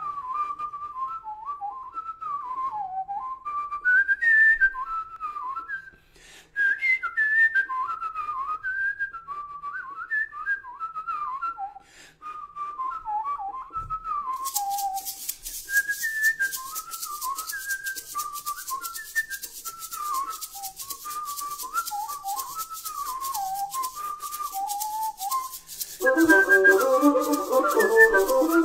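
A person whistling a lilting melody, one note at a time with gliding pitches. About halfway through a shaker joins with a steady fast rattle, and near the end a louder, fuller instrumental sound comes in.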